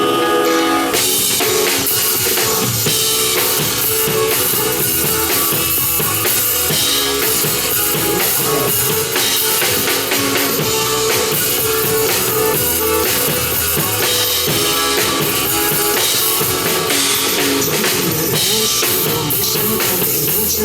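Live pop-rock band music: drum kit with kick and snare over guitar, the full band coming in about a second in after a guitar lead-in.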